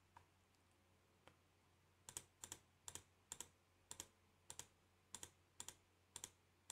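Computer mouse button clicking, about two clicks a second, each a sharp press and release, starting about two seconds in after near silence.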